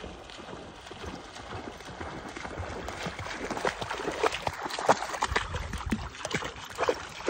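A dog bounding through shallow lake water, its feet splashing in a quick, irregular rhythm that gets louder as it comes close.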